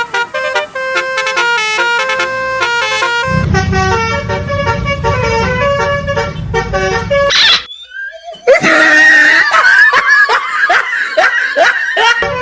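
Bus 'telolet' multi-tone horn playing a stepped melody, with a low engine rumble joining about three seconds in. The sound cuts out briefly after a rising glide about seven and a half seconds in, then returns as a noisier stretch of repeated swooping tones.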